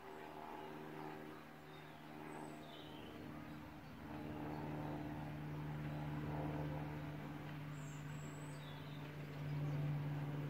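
An engine running steadily, its hum getting a little louder about four seconds in, with birds chirping briefly a few times.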